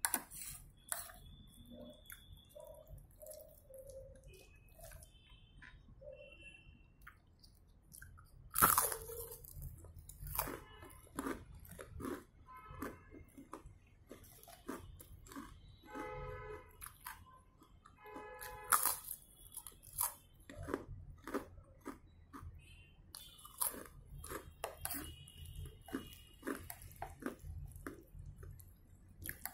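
Close-up chewing and mouth sounds of someone eating baked eggplant casserole, with a fork and knife clicking and scraping on a plate. Many short sharp clicks, the loudest about nine seconds in.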